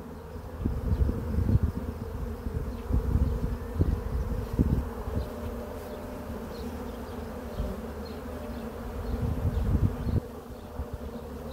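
Steady buzzing of many honey bees flying around an open hive box during a frame inspection, broken by irregular low rumbles.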